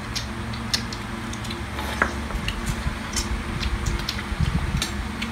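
People eating: scattered light clicks of chopsticks and spoons against small metal and ceramic bowls, with slurping of hot broth, over a steady low hum.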